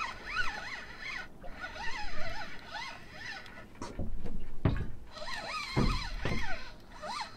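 Spinning reel being wound hard against a fighting fish, giving a squeaky whine that wavers up and down with the cranking. A few dull thumps come about halfway through.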